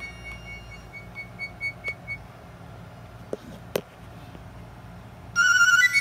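A phone ringtone playing: a run of short, repeated high beeping notes, then a pause broken by two sharp clicks, then a louder, busier ringtone melody starting shortly before the end.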